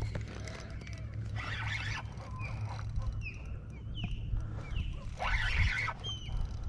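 A bird calling a series of short, falling, whistled chirps, about one or two a second, with two brief bursts of noise and a steady low rumble underneath.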